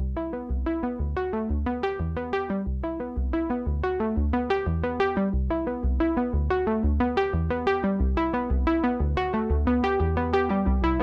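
Intro music: synthesizer and keyboard notes played in a quick, even rhythm over a steady bass pulse.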